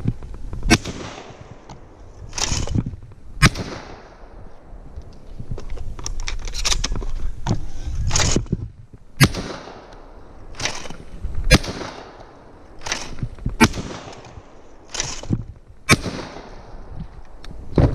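Shotgun fired again and again, one sharp shot every two to three seconds or so, with quieter knocks and bangs between the shots.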